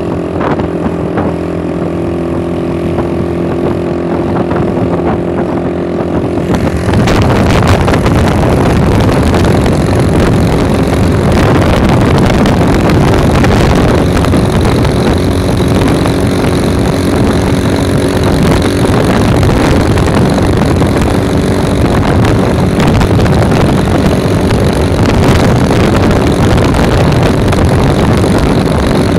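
Engine of a moving road vehicle running steadily. About seven seconds in, a loud rushing of wind on the microphone suddenly swells up and buries the engine for the rest of the ride.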